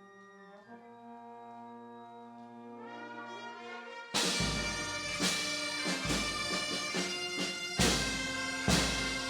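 Music: quiet held instrumental chords swell for about four seconds, then loud bagpipes and drums come in suddenly, with drum beats roughly every second.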